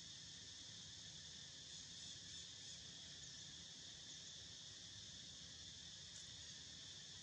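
Faint, steady insect chorus: an even, high-pitched drone with no breaks.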